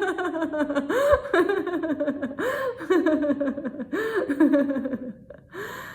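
A woman laughing in an unbroken run of short 'ha' pulses, a deliberate laughter-yoga laugh, fading out about five seconds in.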